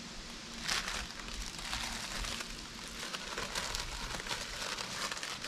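Food packaging crinkling and rustling as it is handled, in irregular bursts.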